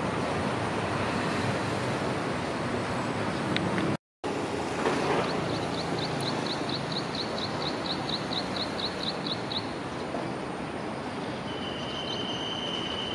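Steady rumble and hiss of a train at a railway station, cut by a brief dropout about four seconds in. A rapid run of short, high, falling chirps, about four a second, lasts some four seconds, and a short steady high tone sounds near the end.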